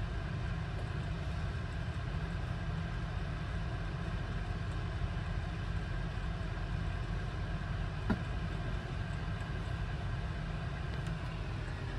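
Steady low rumble with an even hiss over it, heard from inside a semi-truck's cab while the truck is being washed with brush and water; a single short knock about eight seconds in.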